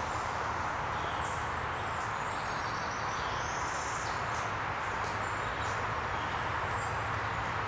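Woodland ambience: a steady hiss of outdoor background noise with faint, scattered high bird chirps.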